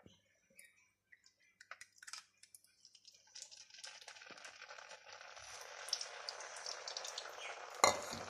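Oat-flour-and-milk mixture poured into a frying pan of hot olive oil, sizzling and crackling. The sizzle sets in about three and a half seconds in and grows, after a few soft clicks, with one sharp knock near the end.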